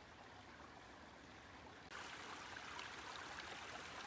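A small brook babbling steadily over branches and stones. About two seconds in, the water sound becomes louder and brighter.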